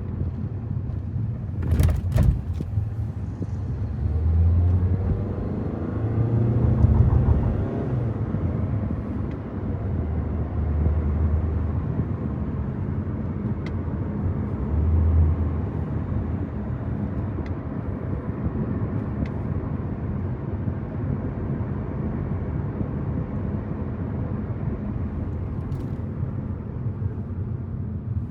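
Car driving: a steady low rumble of road and engine noise, with a sharp click about two seconds in.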